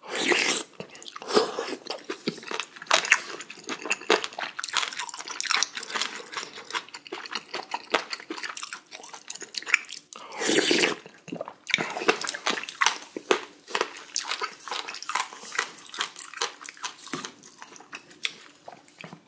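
Person slurping spicy beef small-intestine hot pot off a wooden spoon, loudly at the start and again about ten seconds in, with wet chewing and many small mouth clicks in between.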